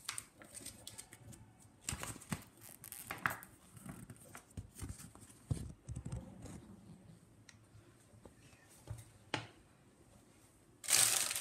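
Handling noises: scattered light clicks and knocks as plastic vegetable-chopper parts are moved about on a countertop. Near the end a loud crinkling of plastic packaging starts.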